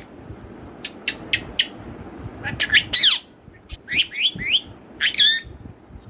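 Rose-ringed parakeet (Indian ringneck) giving a run of short, high chirps and squawks in several quick clusters, some of them rising in pitch.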